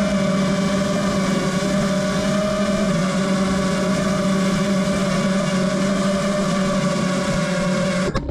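FPV quadcopter's Hypetrain Blaster 1800KV brushless motors and propellers running in flight on 6S power, a steady whine whose pitch wavers slightly with throttle. It cuts off suddenly near the end.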